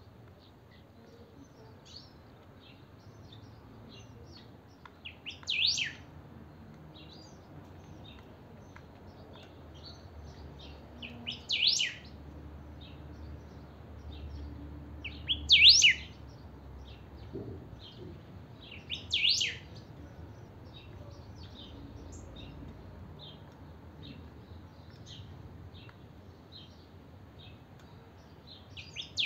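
Caged greyish saltator (pepitero gris, the 'picahueso') singing hard: four loud, short, sharp whistled phrases a few seconds apart, the third the loudest, and another starting at the very end. Faint short chirps fill the gaps between them.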